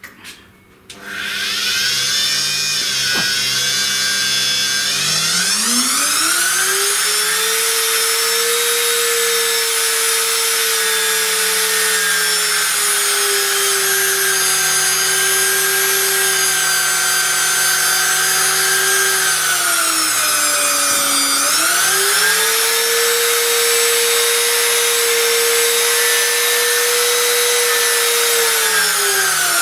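A 1.25 hp metal-bodied trim router motor spins up about a second in and runs with a loud whine on its first test run. Its pitch climbs as the speed is turned up, eases down a little, drops and climbs again about two-thirds through, and falls away near the end.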